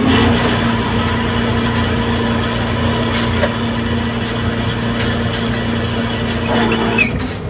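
Fishing boat's deck machinery running: a steady hum and hiss over the throb of the vessel's engine, dying away near the end.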